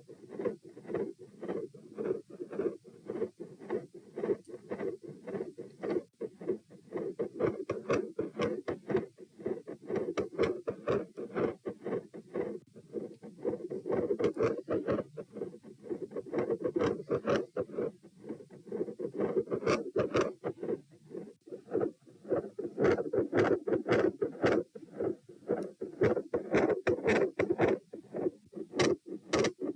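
Heart sounds picked up against the chest: a steady run of closely spaced beats with a continuous sound in the low-middle range between them, typical of a heart murmur, and sharper clicks on some beats.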